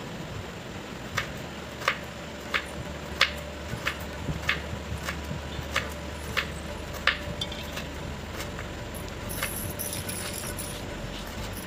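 Kitchen knife slicing bell pepper into strips on a wooden cutting board, each stroke ending in a sharp tap of the blade on the board. About ten taps come at a steady pace of roughly one and a half a second, then they thin out after the middle.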